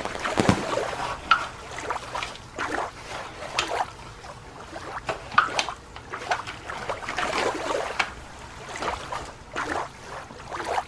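Water splashing and trickling, with short irregular splashes and light knocks, as toy sea animals are handled in water.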